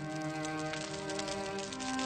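Slow violin music with long held notes, over the irregular snapping and crackling of a wood fire in a fireplace.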